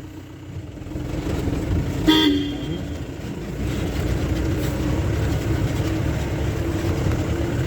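Safari jeep's engine running under load on a rough forest track, getting louder over the first few seconds and then holding steady, with a short horn toot about two seconds in.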